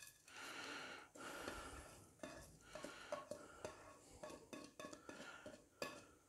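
Faint scraping of fingers pushing spices and chopped coriander off a plate into a bowl, with scattered soft clicks and taps of the plate's rim.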